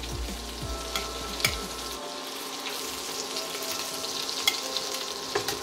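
Fish fillets frying in butter and olive oil in a stainless steel pan, a steady sizzle. A few sharp clicks of metal tongs come as the fillets are lifted out.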